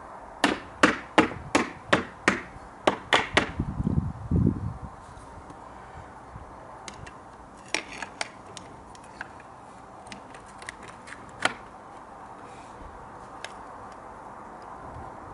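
Aluminium glazing beads being knocked and clicked into place on a window sash: a quick run of about nine sharp taps, roughly three a second, then a duller thump, then a few scattered lighter clicks.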